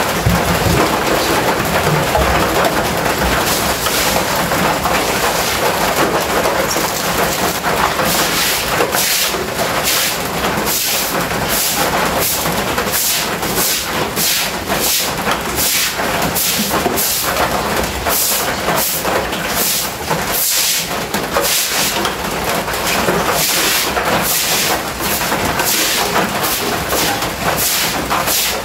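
Floor of a concrete pig pen being scrubbed: rhythmic scraping strokes, about two a second from around eight seconds in, over a steady rushing hiss.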